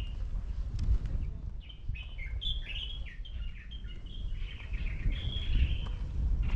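Small birds chirping in a quick, busy run of short notes over a steady low rumble.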